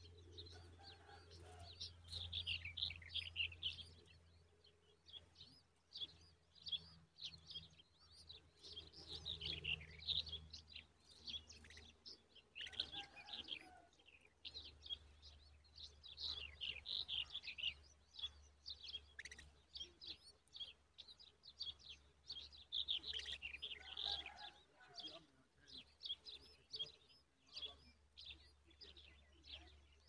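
Common babbler nestlings begging: clusters of rapid, high-pitched chirps that come in bursts every few seconds.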